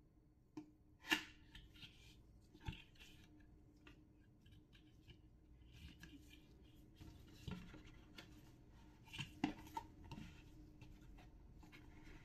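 Faint sounds of a cardboard smartwatch box being handled and opened: paper sliding, light taps and the crisp flicks of carton flaps, with a sharp tap about a second in the loudest.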